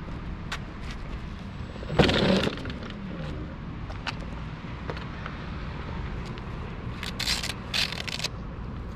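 Wind buffeting the microphone, with a sharp knock about two seconds in and a few short scraping rustles near the end.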